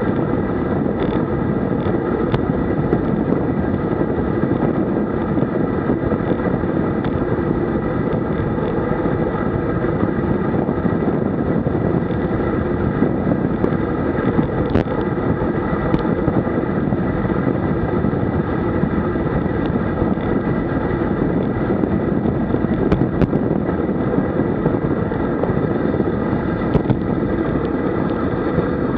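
Steady wind rush on a camera microphone mounted on a road bike descending at about 60 km/h.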